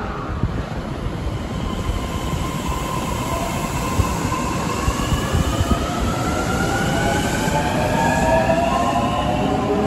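Osaka Metro 30000A series subway train pulling out and accelerating. Its Hitachi IGBT VVVF inverter gives several layered whines that climb steadily in pitch, over a growing rumble of wheels on rail.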